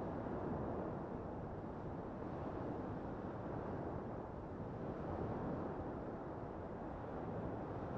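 Small waves breaking and washing up a sandy beach: a continuous surf wash that swells a little as each wave comes in.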